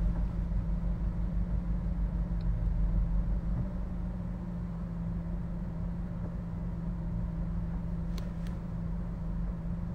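Steady low hum and rumble of a car's running engine, heard inside the cabin, easing slightly about four seconds in.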